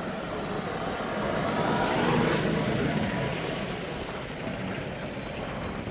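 A motor vehicle passing by, its engine and tyre noise swelling to a peak about two seconds in and then fading away.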